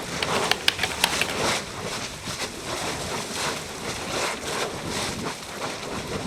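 Erta Ale's lava lake churning and spattering: a rushing noise that swells and fades every second or so, with sharp crackles and pops.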